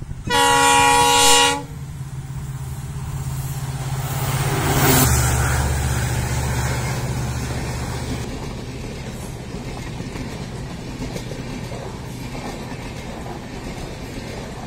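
EMD diesel locomotive sounding one loud horn blast of just over a second, then its engine's low drone swelling as it passes, loudest about five seconds in. The drone gives way to the steady rolling rumble of LHB passenger coaches running by on the rails.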